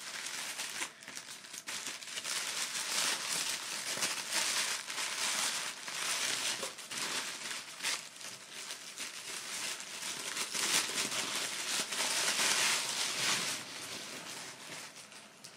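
Gift wrapping paper and red crinkly paper being handled and torn open by hand: dense, irregular crinkling and rustling that dies down near the end.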